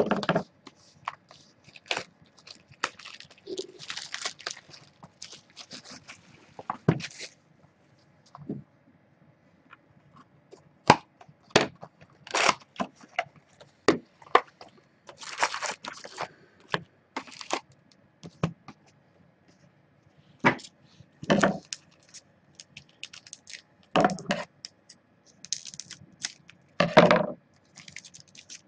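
Cardboard trading card box being opened and its foil card packs handled: irregular crinkling, tearing and sharp clicks, with a few louder knocks in the second half as packs are set down on the table.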